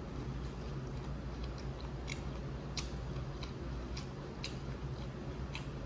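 Close-miked eating of a seafood boil: chewing with scattered sharp clicks and crackles, about a dozen over a few seconds, over a steady low hum.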